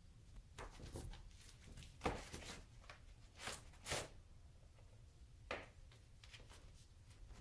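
Birman kittens at play: short, quiet rustles and scrabbles of paws on a quilted blanket, several in a row, the loudest about two and four seconds in.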